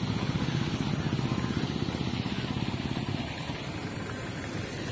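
Motorcycle engine running steadily close by, a fast low putter; it eases off a little for the last second or so.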